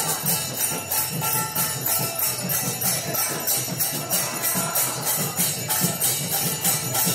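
Devotional kirtan music led by small brass hand cymbals (karatalas) struck in a steady rhythm, about three strokes a second, with a lower pulsing beat underneath.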